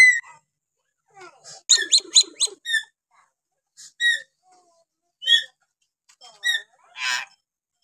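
Hill myna (beo Kalimantan) calling in varied notes: a quick run of several short whistled notes, then single clear whistles spaced about a second apart, and a harsher rasping call near the end.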